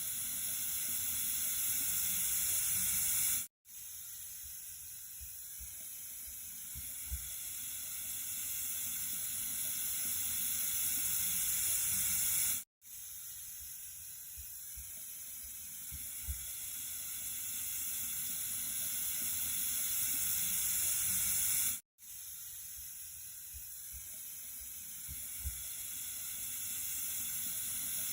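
Steady hiss of running water, looped: each stretch swells slowly louder, then cuts out for a moment and starts over, about every nine seconds. A faint tick falls near the middle of each loop.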